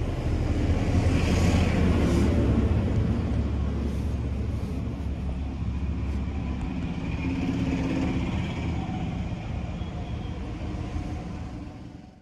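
Steady low rumble of road traffic, with one vehicle briefly standing out about seven seconds in, fading out at the end.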